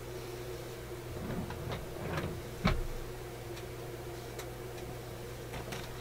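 Steady electrical hum from a mains-powered antique vacuum tube radio under test. A few small clicks and knocks of hands handling the chassis and test leads come in the middle, the loudest one a little before the three-second mark.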